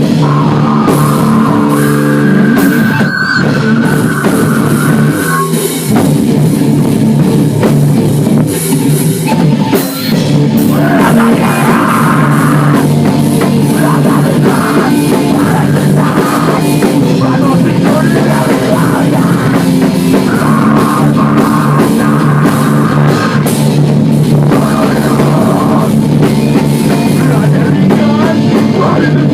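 Heavy metal band music played loudly, with distorted guitars and a drum kit, continuous except for brief drops about six and ten seconds in.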